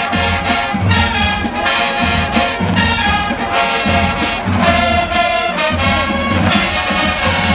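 Marching band brass section playing a tune, with trumpets and trombones over a steady low beat.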